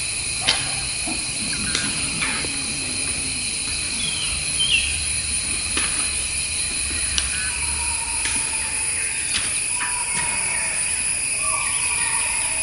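Outdoor natural ambience: a steady high-pitched drone with a few short bird chirps and scattered clicks.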